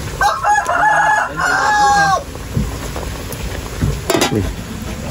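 A rooster crowing once, a call of about two seconds with a brief break in the middle that drops in pitch at the end.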